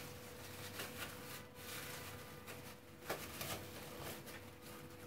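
Plastic cling film crinkling and rustling faintly as hands roll it tightly around a filling, with a few sharper crackles about a second and a half in and again around three seconds.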